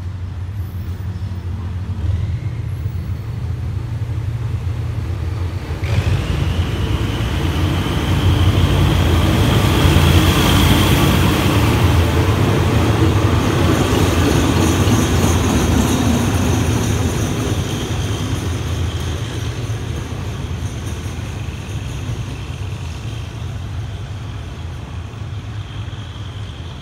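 Diesel locomotive 4025 hauling locomotive 4038 past a station platform: the engine drone swells suddenly about six seconds in, is loudest as the locomotives go by, then slowly fades as they move off, with a high steady whine over it while they pass.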